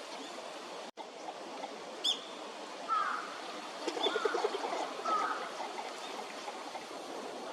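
Northern shoveler calling: a quick run of low knocking notes about four seconds in, with short higher calls before and after it. A small bird chirps once about two seconds in, over a steady background hiss.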